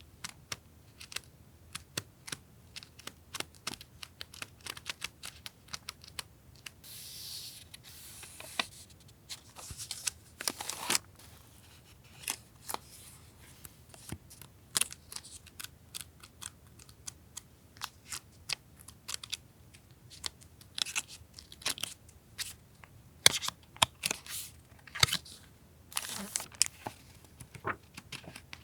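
Paper and plastic stationery being handled: scattered light taps and clicks, with brief crinkling rustles of packaging a few times.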